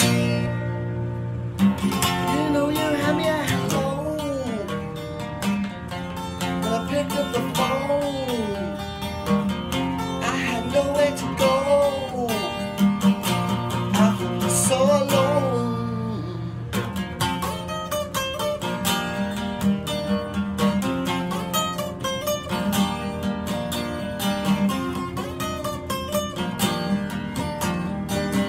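Acoustic guitar strummed in a steady rhythm while a man sings along; the voice is clearest in the first half, with strumming carrying the second half.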